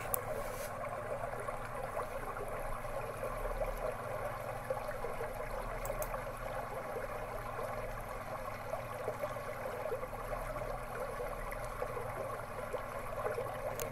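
Steady sound of running water, like a slow stream or river flowing.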